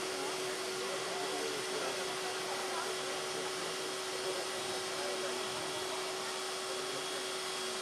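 Steady hiss with a constant hum while a railway turntable slowly turns a Czechoslovak class 498.1 Albatros steam locomotive, with faint voices in the background.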